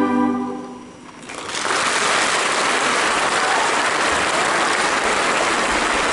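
The last held note of women's voices singing fades away, then an audience bursts into steady applause about a second and a half in.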